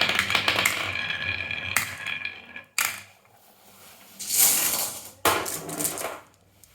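Marbles rolling and clattering through a wooden marble run: a dense run of rattling clicks, then a sharp click, a short pause and further bursts of clacking in the second half.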